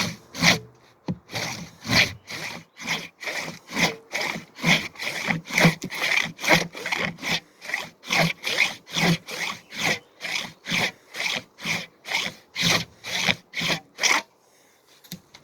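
Handsaw cutting through a standing tree trunk in fast, steady back-and-forth strokes, about two or three a second. The strokes stop about 14 seconds in, with the tree still held by its last uncut wood.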